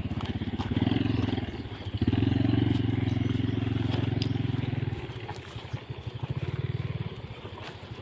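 Small motorcycle engine running with a low, pulsing exhaust note, revving up and easing off a few times, then fading from about five seconds in as the bike pulls away.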